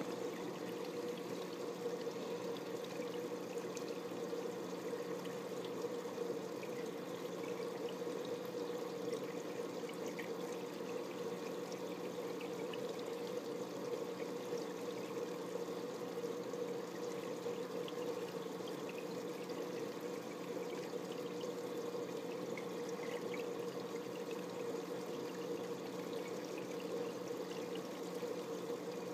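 Steady aquarium water trickling and splashing, with a constant low hum from equipment running underneath.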